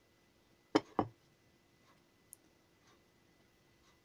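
A serving plate with an upturned metal bundt cake pan on it set down onto a wooden board: two quick knocks close together about a second in, then a faint tick.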